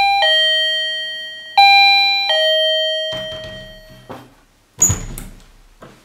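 Wireless doorbell receiver chiming ding-dong twice, a high note then a lower one each time, the second chime ringing out for about two seconds. It is set off by a reed-switch door sensor as the door is opened. A single sharp knock comes near the end.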